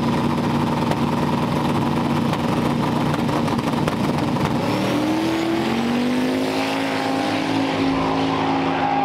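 Two drag-racing cars' engines held at the starting line, then launching about four and a half seconds in, their pitch rising as they accelerate away down the strip.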